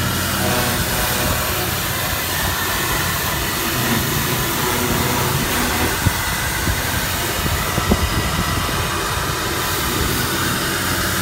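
Small electric pressure washer running steadily, its motor humming under the hiss of the water jet spraying onto a wet teak deck. Two short knocks sound about six and eight seconds in.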